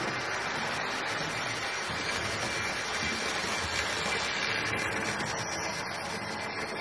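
Hornby OO-gauge GWR Dean Single model locomotive pulling coaches round the track: a steady whirr and rumble of its motor and wheels on the rails. It is a little louder around three to four seconds in, as the train passes closest.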